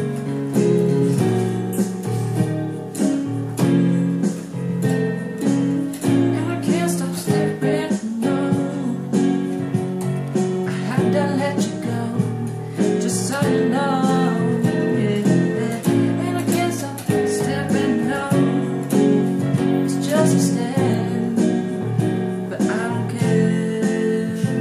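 Electronic keyboard played with held chords and a melody line, with a man singing along in places.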